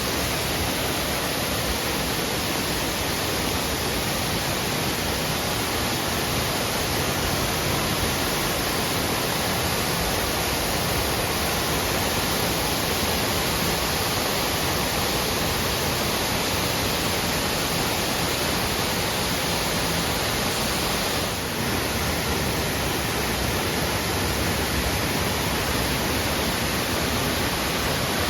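A waterfall running: a steady, even rush of falling water with no change in its sound.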